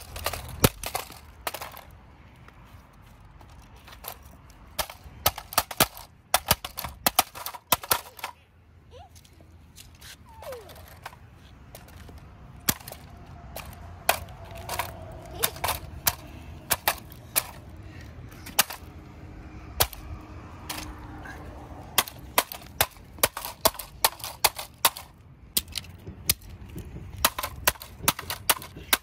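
A hand mallet smashing a plastic remote-control toy car on concrete, again and again. The blows are sharp cracks coming in quick runs of several strikes, with a quieter spell of a few seconds a little before the middle.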